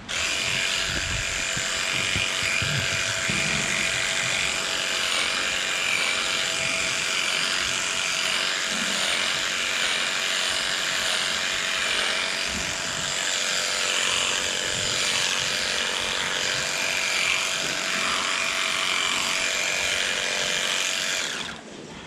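Corded electric livestock clippers running steadily as they trim the hair of a cow's tail switch: a high buzz over a steady hum. It starts suddenly and cuts off shortly before the end.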